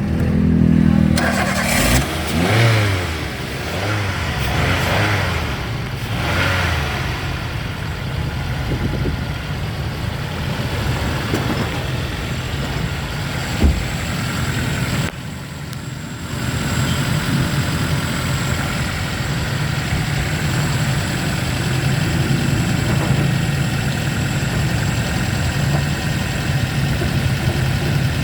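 Toyota Avanza engine starting up, revved up and down a few times over the first several seconds, then settling into a steady idle. A single sharp click sounds about halfway through.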